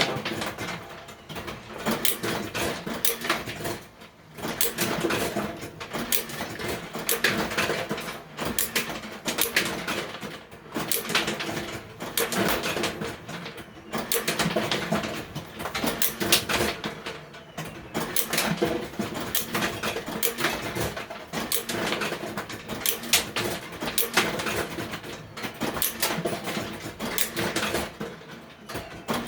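1961 Midway Rifle Gallery arcade shooting game in play: its vacuum blower fires nylon balls in rapid shots. A dense, continuous run of clicks and knocks from the balls and the mechanism sounds over a steady hum.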